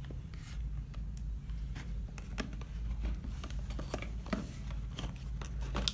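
Light handling noise of a phone charger and its packaging being unboxed: scattered small clicks and rustles, over a steady low hum.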